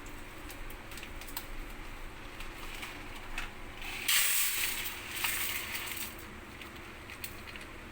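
Dry short-grain rice poured into the meal pot: scattered small clicks of grains landing, with a denser rush of grains about four seconds in that lasts about a second.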